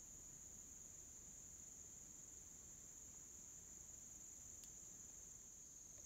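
Faint, steady high-pitched chorus of crickets trilling without a break.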